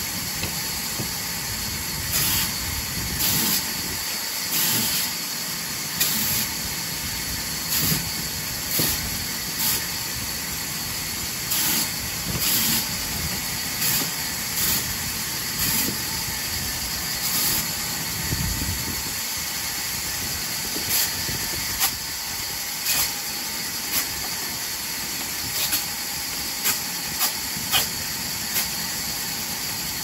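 Vertical band saw running with a steady hiss, cutting small pieces of branch wood one after another: a short, louder rasp every second or so as each piece goes through the blade.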